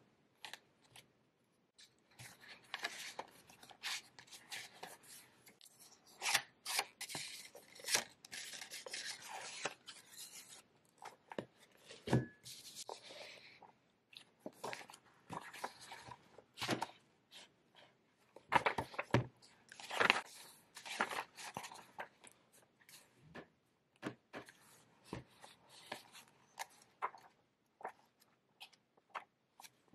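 Paper pages of a blank notebook being turned and riffled by hand: irregular crisp rustles and flaps, thicker in some stretches. There is one soft knock about twelve seconds in.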